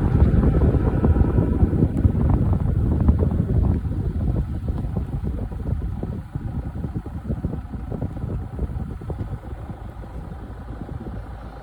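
A vehicle driving over rough ground: a low rumble with dense crackling, loudest for the first four seconds and then easing off.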